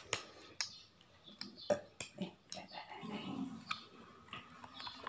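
Scattered light clicks and taps of small manicure items being handled, irregular and fairly faint, with a soft low rustle about three seconds in.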